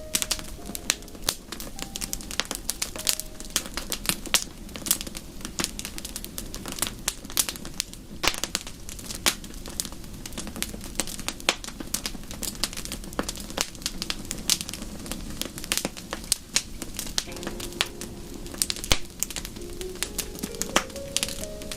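Wood fire in a fireplace crackling, with irregular sharp pops and snaps throughout. Faint soft melodic notes can be heard near the start and again in the last few seconds.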